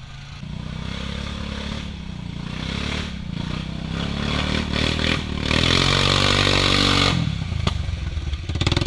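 Off-road vehicle engine revving hard, the revs climbing over several seconds to a loud, hissy peak about five and a half to seven seconds in, then dropping back suddenly.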